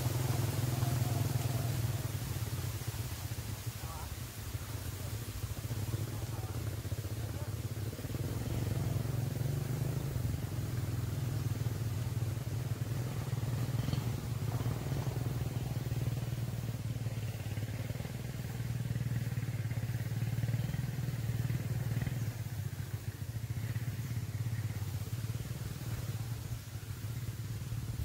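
A small engine running steadily with a low, even hum, with no rise or fall in pitch.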